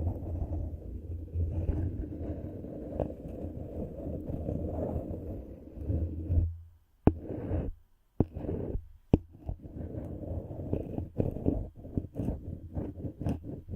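Close, muffled rubbing and scratching against a microphone for about six seconds. After a brief pause it turns into a quick run of short taps and scrapes.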